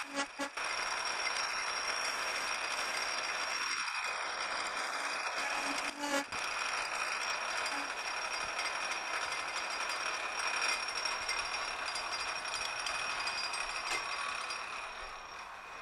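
Metal lathe running while a ground high-speed-steel form tool plunge-cuts a radius into a turning steel part, a steady cutting noise with high ringing tones; the cut is chattering slightly as the tool reaches full depth. The sound dies down over the last couple of seconds as the tool is backed out and the lathe winds down.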